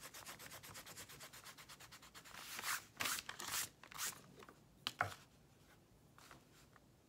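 Pencil lead scratching on textured paper while drawing small circles: quick, even strokes at first, then several louder strokes, with a sharp tap about five seconds in.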